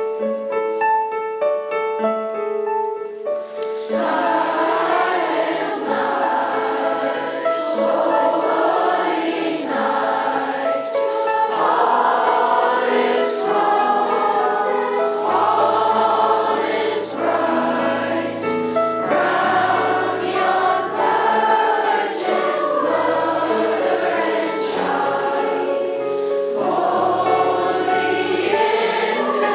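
Piano playing a short introduction of held notes, then a middle school choir comes in singing about four seconds in and keeps singing with the accompaniment.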